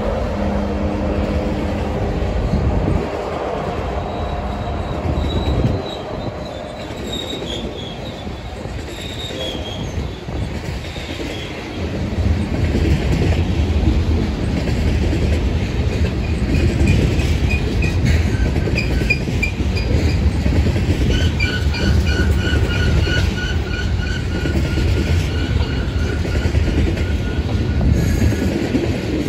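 A freight train passing. A diesel locomotive's engine drone fades over the first few seconds. Then the cars roll by with a steady low rumble and clatter, while wheel flanges squeal in high, pulsing tones that change pitch, with several at once near the end.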